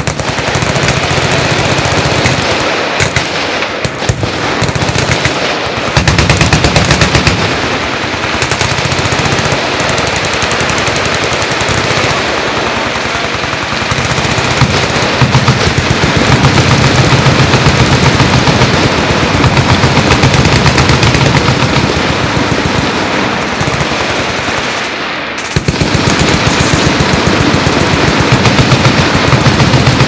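Many machine guns firing together in long, continuous automatic bursts, a dense unbroken rattle of shots. The fire thins briefly about 25 seconds in, then comes back at full volume.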